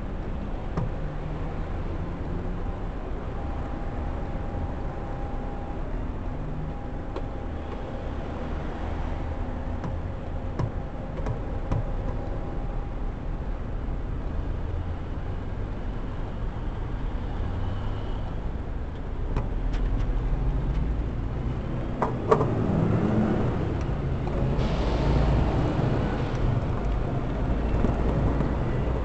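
City street traffic, cars and a bus, as a steady rumble heard from a bicycle waiting at a light. About twenty seconds in it grows louder as the bicycle rides off, and a sharp click comes a couple of seconds later.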